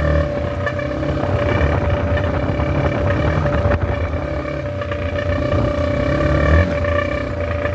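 Yamaha TT-R230 dirt bike running as it is ridden, with an air horn jammed into its exhaust sounding one steady horn tone over the engine.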